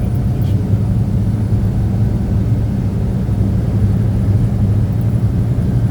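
Steady low drone of a truck's engine and road noise heard from inside the cab while driving, with no change in pitch or level.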